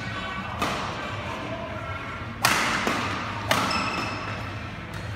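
Badminton racket strings hitting a shuttlecock during a doubles rally: three sharp cracks a second or two apart, the loudest about two and a half seconds in, each with a short echo.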